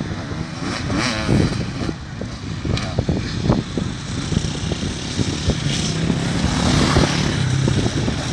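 Enduro dirt bike engines revving on an off-road course. Near the end one bike's engine holds a steady note and grows louder as it comes closer.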